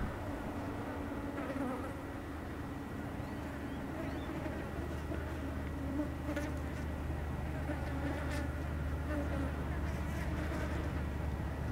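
Low, steady drone of an approaching road train's engine, growing slowly louder, with insects buzzing close by.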